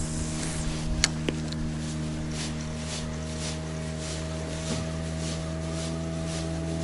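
Outboard motor of a nearby boat running steadily, its pitch creeping slowly upward as the boat speeds up to get on plane. A sharp click comes about a second in, then a soft rhythmic whirr about twice a second, like a spinning reel being cranked.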